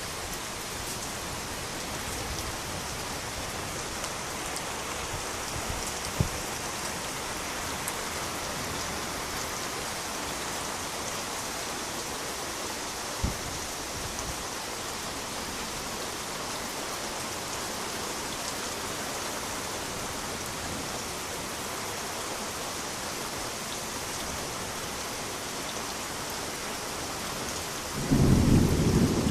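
Steady rain falling, with two single sharp taps along the way. A loud rumble of thunder breaks in near the end.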